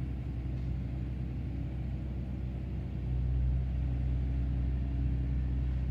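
Small excavator's engine running at work: a steady low drone that gets a little louder about three seconds in.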